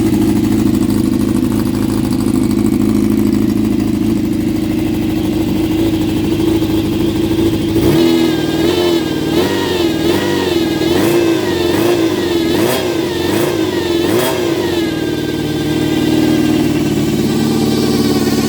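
Honda CBX400F air-cooled inline-four running steadily, then revved up and down repeatedly for several seconds before settling again. The title says it makes the abnormal meter noise typical of CBXs, a whine from the instruments that rises and falls with the revs.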